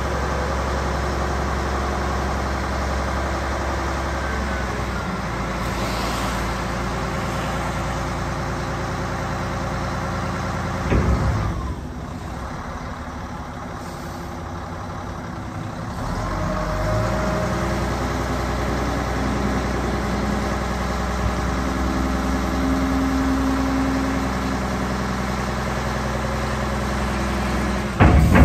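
Volvo A25D articulated dump truck's six-cylinder diesel running at raised revs as the hydraulics tip the dump body up, ending in a short clunk as it reaches full tip; after a quieter stretch at idle the engine revs up again to lower the body, which comes down onto the frame with a loud bang at the end.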